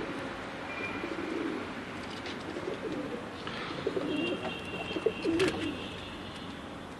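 Domestic pigeons cooing in short warbling bouts, with a few sharp knocks and a thin high chirp about four to five seconds in.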